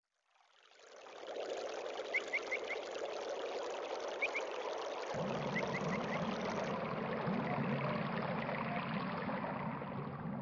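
Running water, fading in over the first second, with a few short high chirps in quick groups of two to four. A low steady hum joins about five seconds in.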